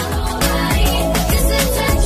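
Channel intro music with a steady beat and heavy bass.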